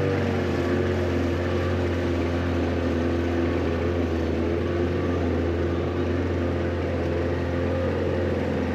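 Engine of an amphibious VW Polo car-boat running at a steady speed while it travels on the water: a low, even drone.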